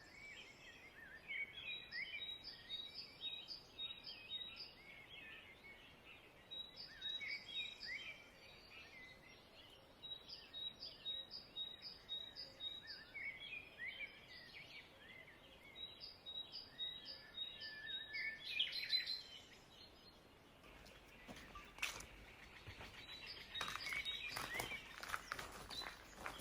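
A songbird sings faint phrases of rapid, evenly spaced high notes mixed with lower sliding notes, repeating every few seconds. In the last few seconds a run of clicks and rustling takes over.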